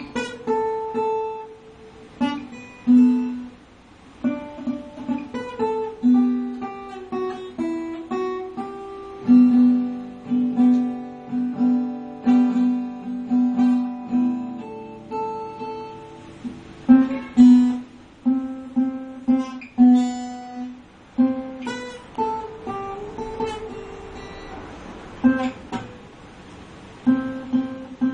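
Solo guitar playing single plucked notes and chords that ring and fade, with a few sharply strummed chords.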